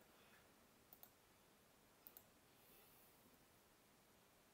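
Near-silent room tone with faint computer mouse clicks: two quick pairs of clicks, about a second apart.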